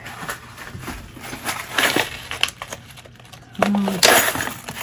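Clear plastic zip-top bags crinkling and small metal charms clicking inside them as they are handled and rummaged through. A brief hummed voice sounds about three and a half seconds in.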